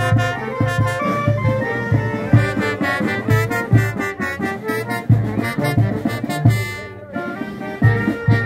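Live brass band playing a lively dance tune: brass melody over a steady bass beat.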